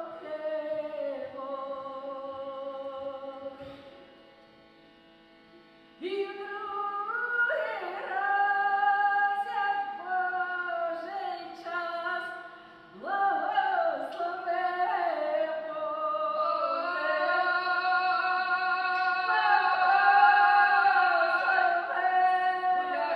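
A woman singing slow, long-held notes. The singing fades out about three and a half seconds in, stops for a couple of seconds, then comes back about six seconds in and grows louder in the second half.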